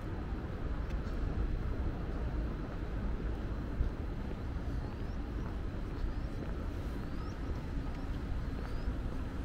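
Outdoor city ambience: a steady low rumble, with a few faint, short rising chirps in the second half.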